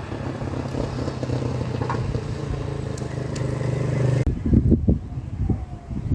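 A vehicle engine running at a steady pitch, cutting off abruptly about four seconds in, followed by uneven low rumbling.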